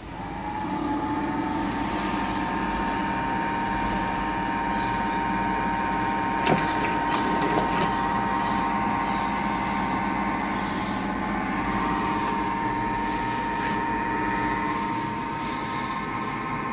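Electric motor of a homemade wooden egg incubator starting up, its pitch rising slightly as it comes up to speed, then running with a steady whine. A few sharp clicks and knocks come about six to eight seconds in.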